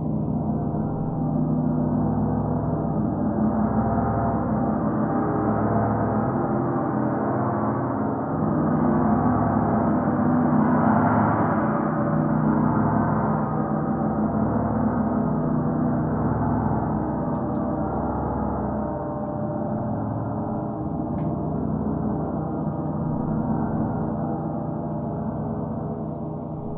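Gongs played in a continuous rolling wash, many overlapping tones ringing together. It swells to its loudest about halfway through, then slowly eases off.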